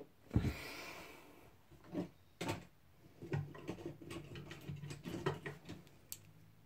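Plastic toy figures being handled and set down on a tabletop: a knock followed by a short scraping rustle, then a few sharp clicks and a stretch of light, scattered taps.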